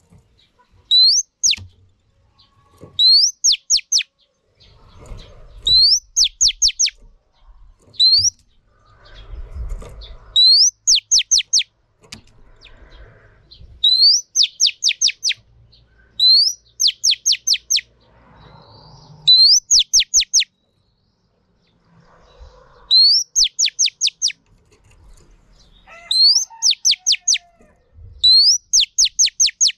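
Female oriental magpie-robin calling: a sharp rising whistle followed by three or four quick falling notes, the same phrase repeated over and over about every two seconds. This is the female call that keepers play to rouse male magpie-robins into song.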